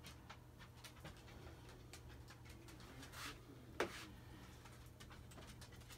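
Near silence: faint room tone with a steady low hum, a few soft clicks, a brief rustle about three seconds in and one short sharp sound just before four seconds.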